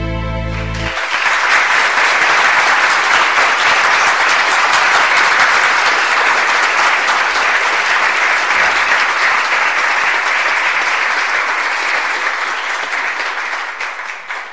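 The final chord of a song rings out for about the first second, then a long burst of audience applause follows and fades away near the end.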